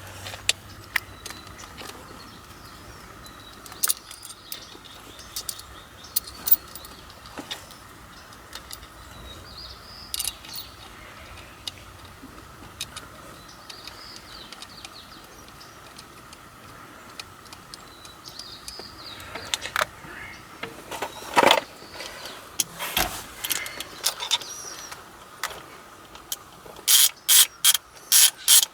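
Scattered metallic clicks, clinks and knocks of hand tools and shifter parts being worked on, with a quick run of sharp clicks near the end.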